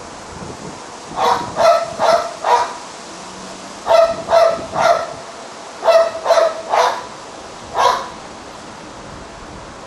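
A dog barking: about eleven short, high barks in quick groups of three or four, with pauses between the groups.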